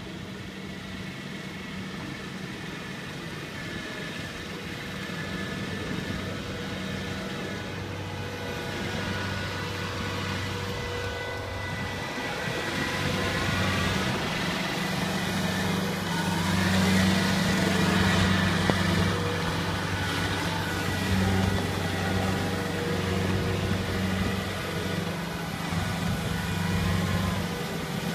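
Tracked rice combine harvester's diesel engine running steadily with a low hum, getting louder over the first half as the machine comes closer.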